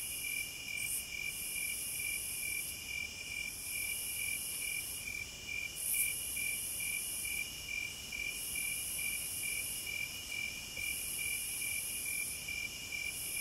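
Insects chirping: a steady, evenly pulsed high trill, with a still higher buzzing trill that comes in phrases of about a second and a half separated by short gaps.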